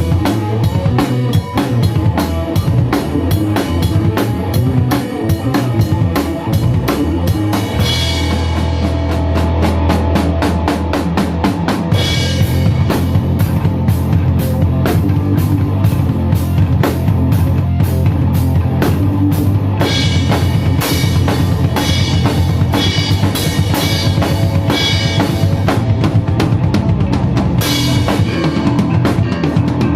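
Drum kit played in a fast rock groove, dense kick and snare strokes, the pattern changing several times.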